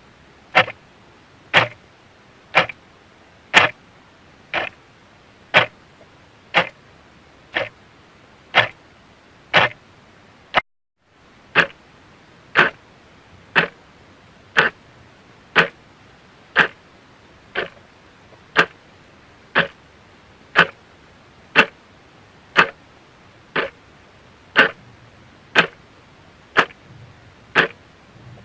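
A clock ticking steadily, one sharp tick per second, with a brief break of silence about eleven seconds in.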